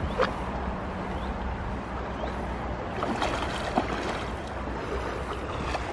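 Shallow river water running and lapping over stones, with a few brief splashes at the surface.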